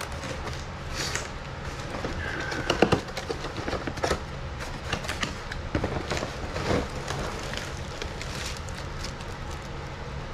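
A cardboard box being handled and turned over: irregular scraping, knocking and rustling of cardboard, loudest about three and four seconds in, over a steady low hum.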